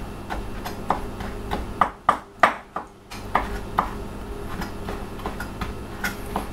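Chef's knife mincing orange zest on a plastic cutting board: a steady run of blade strikes, about three a second, a few of them louder around two seconds in.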